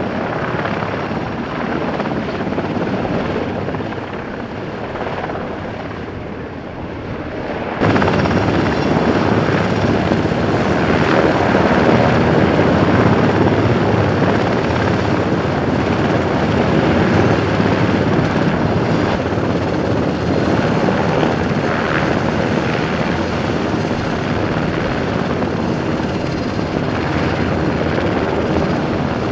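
Helicopter running steadily, a dense constant rotor and engine noise. About eight seconds in it cuts abruptly to a louder, brighter take of the same sound.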